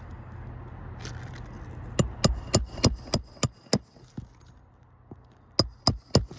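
Hammer strikes with a metallic ring: a quick run of seven blows, about three a second, then a pause and three more. They come from hand-nailing during a three-tab asphalt shingle repair.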